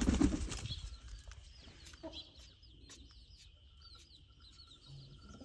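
A young pigeon flaps its wings briefly at the start as it is let go, then faint, rapid high cheeping of chicks, several short falling peeps a second.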